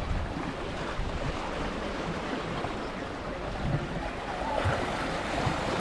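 Sea water washing against the harbour rocks, a steady surf-like rush with wind rumbling on the microphone.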